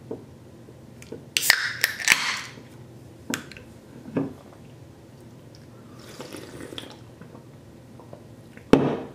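An aluminium can of Mountain Dew being opened: the tab clicks twice, about a second and a half in, and the carbonation hisses out. A few light knocks of the can follow, then a louder thump near the end.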